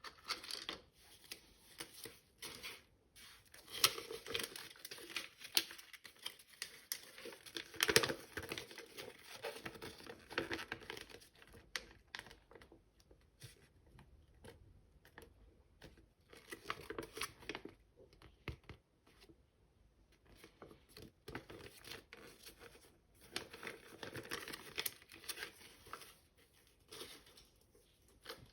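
Toy packaging being handled, crinkled and torn open by hand in uneven spells, louder in the first half and again near the end.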